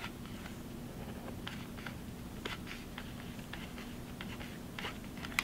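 Faint, scattered light clicks and handling noises from working a hot glue gun along foam-board pieces, over a low steady hum.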